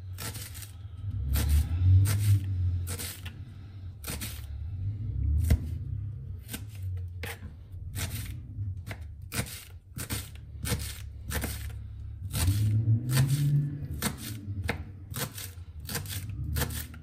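Knife chopping garlic on a cutting board: sharp taps, spaced out at first, then about two a second from roughly halfway in, over a low hum.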